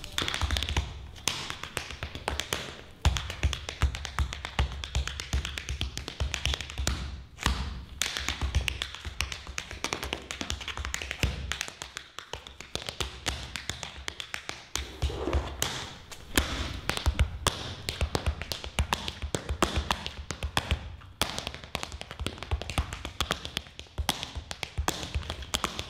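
Tap shoes striking a hard stage floor in fast, dense rhythms of rapid taps and heavier accented stamps, with a brief lull about twelve seconds in.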